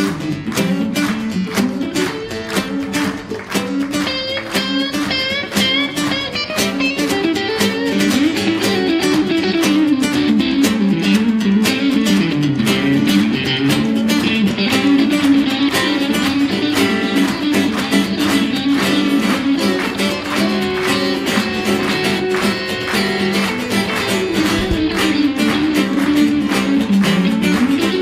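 Live rock-and-roll band playing an instrumental intro: strummed acoustic guitar with electric guitar, bass and drums keeping a steady beat, the band getting louder about eight seconds in.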